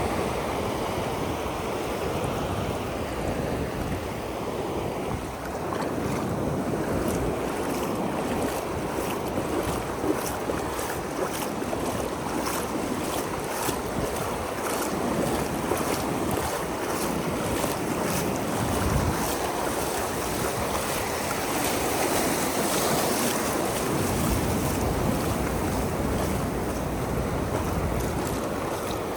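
Ocean surf washing steadily on a sandy beach, with wind rumbling unevenly across the microphone.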